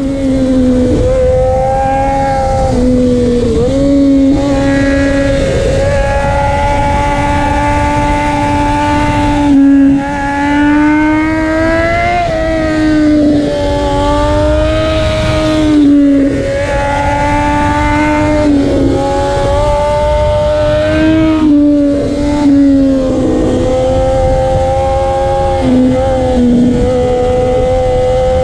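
Triumph Daytona 675's three-cylinder engine through a Racefit slip-on exhaust with the catalytic converter still fitted, running loud at high revs. The pitch mostly holds steady and wavers, with brief dips and swoops every few seconds.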